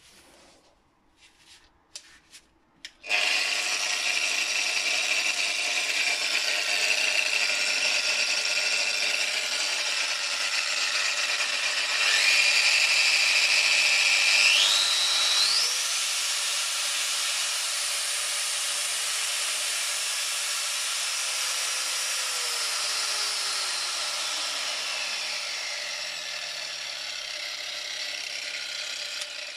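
Metabo WEV 11-125 Quick variable-speed angle grinder with a diamond cutting disc, running free with no load. After a few clicks it starts about three seconds in and runs steadily. Partway through, its whine steps up in pitch twice as the speed is raised, then glides down to a lower, steady speed near the end.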